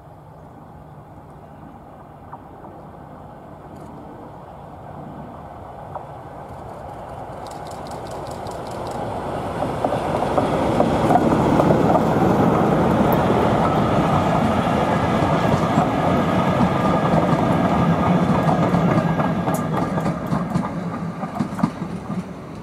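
Diesel locomotive hauling a train of coaches approaches and passes close by: the engine note grows steadily louder over the first ten seconds, then the coaches run past with continuous wheel and rail noise before it eases off and cuts off suddenly at the end.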